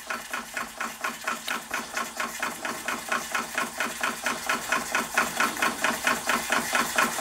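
Empire B-43 model steam engine running steadily, its single cylinder giving a quick, even beat of puffs, several a second.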